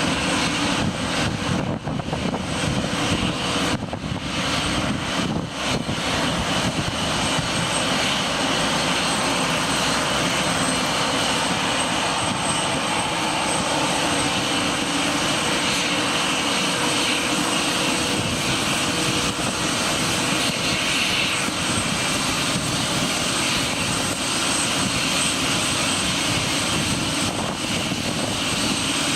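Boeing 747-400's Pratt & Whitney PW4056 turbofans running at low taxi thrust, a steady jet rush with a high whine held throughout.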